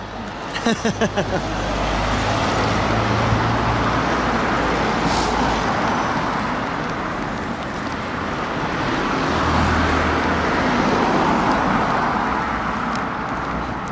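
Road traffic: cars passing on the street alongside, swelling as one goes by about two seconds in and as another passes around ten seconds in.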